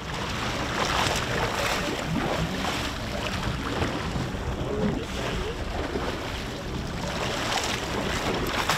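Wind buffeting the microphone over water sloshing and splashing against the side of a fishing boat: a steady rushing noise with a few brief splashes.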